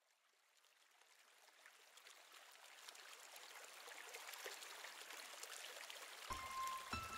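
Faint, steady rushing sound like a flowing stream, fading in gradually from silence. Near the end the first notes of intro music come in, with held tones over low notes.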